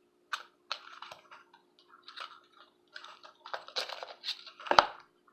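Cosmetic products and their packaging being handled: an irregular run of small clicks and rustles, with one sharper knock near the end.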